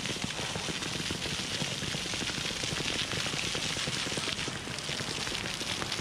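Water jets of a ground-level fountain splashing onto paving: a steady, crackling hiss like rain, over a crackly low rumble.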